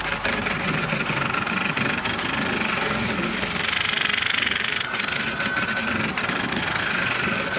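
Wood lathe spinning a coconut-wood blank while a hand-held turning tool cuts into it: a steady, rough cutting noise over the machine's running.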